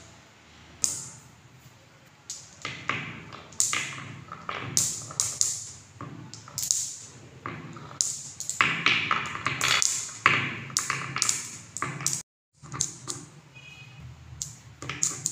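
Balls rolling down grooves cut in a fibreboard marble-run track, each clacking into the row of balls queued against a wooden stop block: a string of sharp clicks with rolling in between, coming faster about two-thirds of the way through, with the sound cutting out for a moment a little after twelve seconds.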